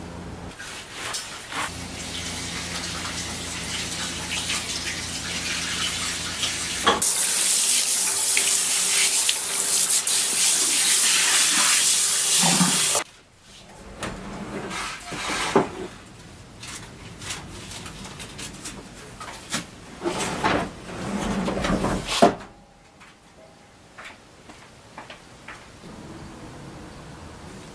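Kitchen tap running hard into a sink for several seconds, with a steady low hum before it starts. After the water stops, dishes and utensils clatter and knock.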